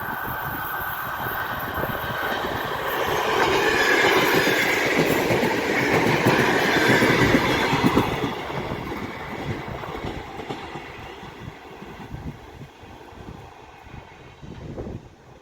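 ER9PK electric multiple unit passing at speed: the running noise of its wheels on the rails builds to a peak about halfway through, then fades as the train moves away. At the start a thin high squeal comes from the wheels as the train leaves a curve.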